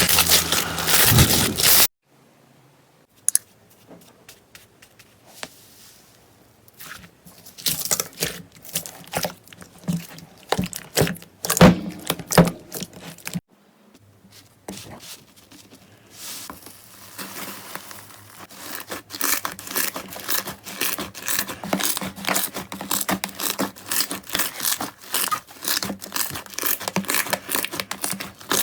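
Slime being pressed, squeezed and pulled close to the microphone, giving crisp crackling clicks and pops. A dense crunch opens it and stops suddenly. After a short gap come scattered clicks, and from about halfway a steady run of rapid crackling.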